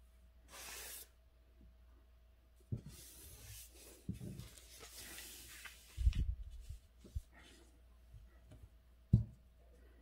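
Ink brush rubbing and sweeping across calligraphy paper in short strokes, with a few soft knocks as the brush or hand touches down. A faint steady hum sits underneath.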